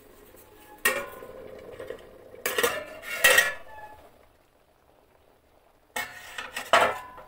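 Stainless steel lid clanking against a steel kadhai as it is handled and lifted off. There is a single clank about a second in, a louder run of clanks between two and a half and three and a half seconds, and another run near the end.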